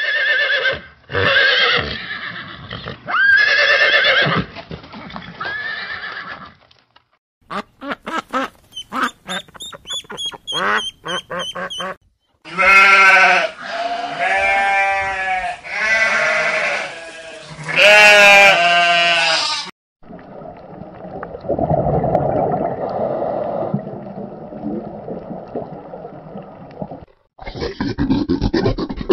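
A run of different animal sounds, one clip after another. A horse neighs several times in the first seconds, then comes a quick series of short high calls. Loud drawn-out bleats follow in the middle, then a low rough noisy stretch, and rapid clicks near the end.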